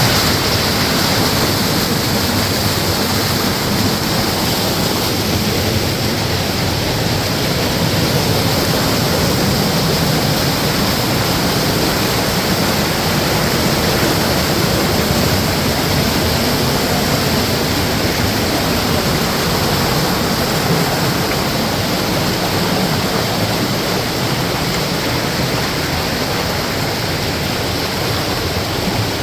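A waterfall's water rushing steadily.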